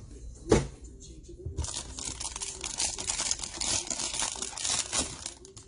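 A single knock about half a second in, then the foil wrapper of a Panini Playbook football card pack crinkling and tearing as it is ripped open by hand, for about three and a half seconds.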